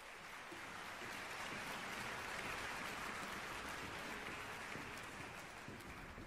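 Audience applause, a dense patter of clapping that swells and then dies away near the end.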